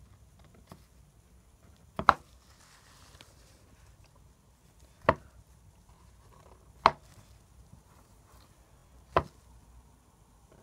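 Marker pen tip striking paper on a hard desk: four sharp knocks, the first a quick double, spaced about two seconds apart.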